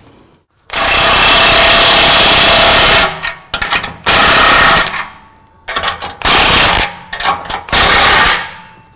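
Cordless impact wrench hammering the nuts tight on exhaust pipe clamps. It runs in one long burst of about two seconds, then three short bursts.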